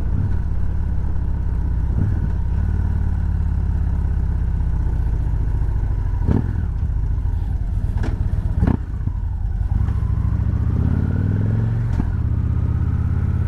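Motorcycle engine running steadily under the rider, picked up by a helmet-mounted mic, with a few sharp knocks along the way. From about ten seconds in the engine note rises as the bike speeds up.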